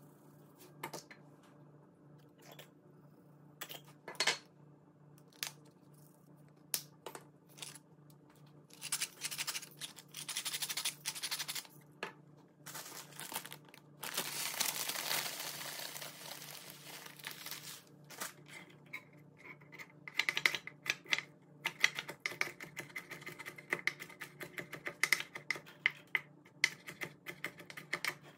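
A seasoning shaker bottle shaken in short bursts over a stainless steel bowl. Then a plastic bag of panko breadcrumbs rustles and crumbs are poured in for about four seconds. Over the last several seconds a chef's knife chops raw shrimp in fast, rapid strokes on a plastic cutting board.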